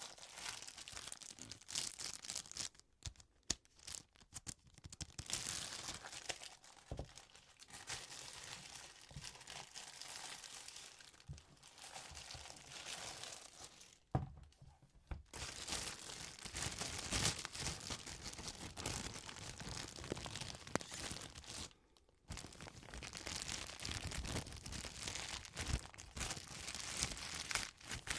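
Packaging being handled: paper and plastic crinkling and tearing with small clicks and rustles, broken by a few short pauses.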